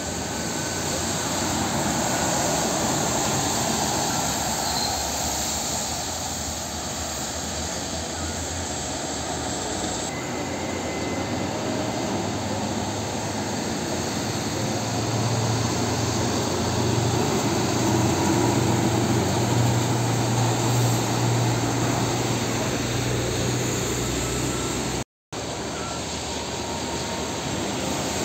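Heavy diesel trucks passing on a wet highway, with steady traffic and tyre noise. A low engine hum grows stronger in the middle. The sound cuts out for a moment near the end.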